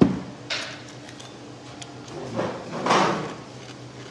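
A sharp thump, then short scraping and rubbing noises, loudest about three seconds in. These are handling and table noises.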